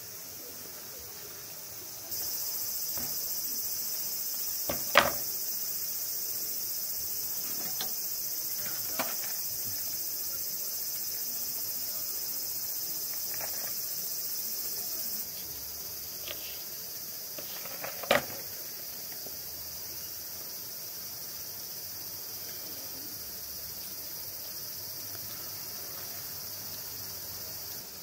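Steady high-pitched chorus of summer insects, louder from about two seconds in and dropping back at about fifteen seconds. A few short, sharp knocks come over it, the loudest at about five and eighteen seconds.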